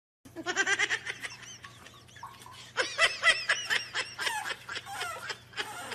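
A person laughing in quick, high-pitched giggles, in two bouts: a short one at the start and a longer one from about three seconds in.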